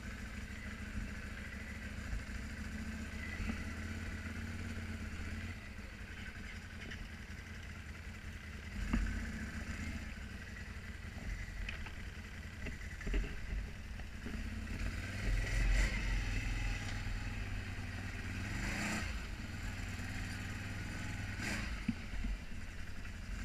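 Can-Am ATV engine running and revving as the quad pulls away and rides over rocky dirt, with a few sharp knocks from the rough ground about 9, 16, 19 and 21 seconds in.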